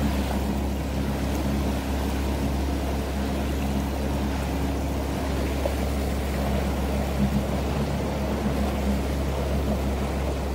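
Yamaha FX SVHO jet ski's supercharged four-stroke engine running under way, a steady drone that holds its pitch throughout.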